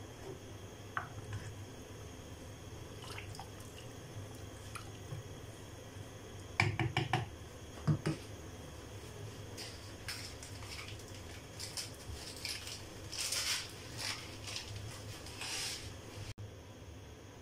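Pot of dal simmering on a gas burner, with soft bubbling and hissing bursts in the later part. A little under halfway in, a wooden spoon knocks quickly on the pot four or five times, then once more.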